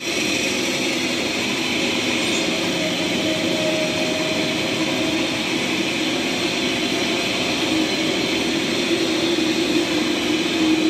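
Vertical turret lathe (vertical boring mill) running steadily, its large rotating table turning a big cylindrical workpiece while the tool cuts inside it. An even machine drone with a low hum that swells slightly near the end.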